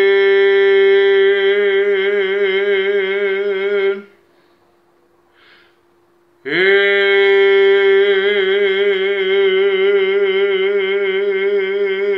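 A singer belting long held notes on G#3 with a steady vibrato. The first note breaks off about four seconds in, and after a short breath a second long G#3 starts at about the six-and-a-half-second mark and is held to the end.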